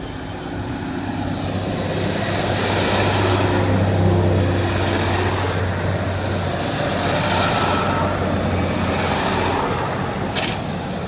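Class 390 Pendolino electric train passing through the station at speed, with a steady low hum under a rushing noise that swells about four seconds in and slowly eases. A few sharp clicks come near the end.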